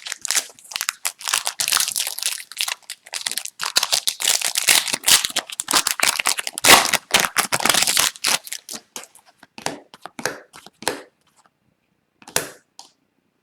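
A hockey card pack's wrapper being torn open and crinkled: a dense crackling rustle for about nine seconds. It thins to scattered clicks, with one short rustle near the end.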